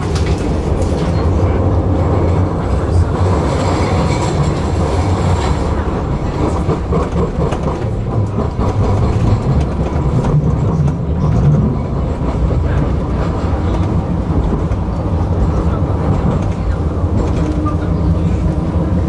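Tram running along its track: a steady rumble of steel wheels on the rails.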